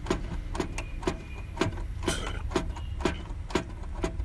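Scroll push button on a Secure Sprint 350 three-phase electricity meter being pressed over and over, clicking about twice a second as it steps through the display readings, over a steady low rumble.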